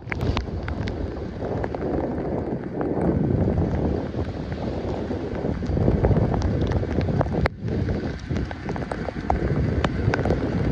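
Wind buffeting the microphone in the rain: a gusting, uneven low rumble with scattered faint ticks.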